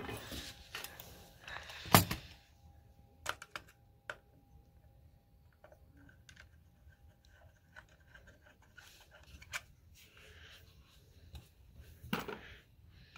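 Small metal clicks and taps of screws, a screwdriver and parts being handled while the top of a Carter Thermoquad carburetor is screwed on, with one sharp knock about two seconds in. The clicks come irregularly, a few seconds apart.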